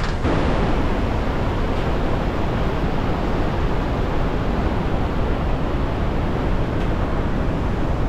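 Iguazu Falls: a large volume of brown river water rushing over the falls, a loud, steady, even rush of water.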